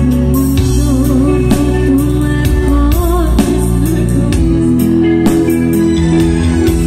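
Live wedding band music played loud through a PA: electronic keyboard over a steady drum beat, with a woman singing into a microphone.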